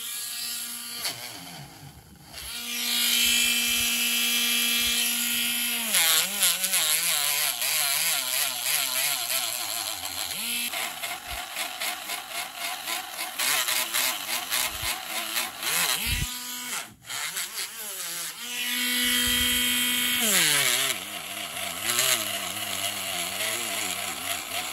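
Small handheld rotary tool with a polishing wheel running. Its motor whine dips and wavers in pitch as the wheel is pressed against a fountain pen barrel, and holds steady when the wheel runs free. It stops about sixteen seconds in and starts up again a second or so later.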